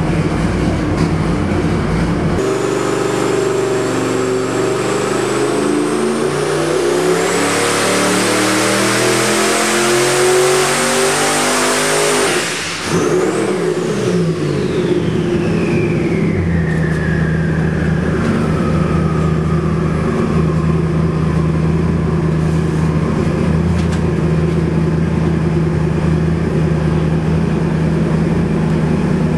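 Twin-turbo 427 cubic-inch small-block Chevy on an engine dyno, idling and then, about two seconds in, making a full-load pull of about ten seconds to around 5,900 rpm. The engine note climbs steadily with a rising high turbo whistle, then cuts off abruptly. The turbos' whine falls slowly away as it drops back to a steady idle.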